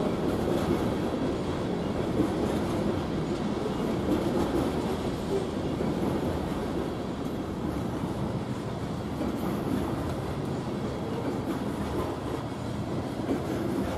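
Freight train of coal hopper cars rolling past close by: a steady rumble and clatter of steel wheels on the rails.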